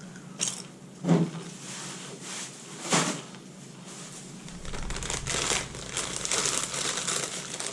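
A plastic chip bag crinkling as it is handled: a few separate sharp crackles at first, then denser, steadier crinkling from about halfway through.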